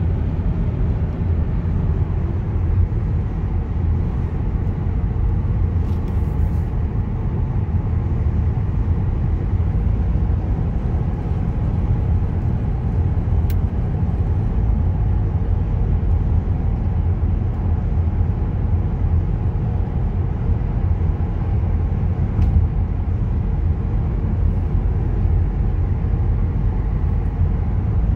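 Steady low rumble of a car driving at motorway speed, engine and tyre noise heard from inside the cabin.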